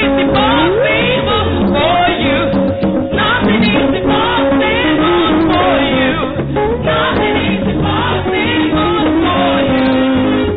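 Gospel choir singing with instrumental backing, holding long notes.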